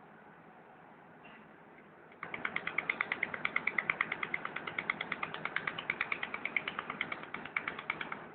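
Pulsed laser welder of a mold repair machine firing a rapid, even train of pulses, about nine sharp clicks a second, starting about two seconds in and cutting off suddenly near the end, over a faint steady hiss.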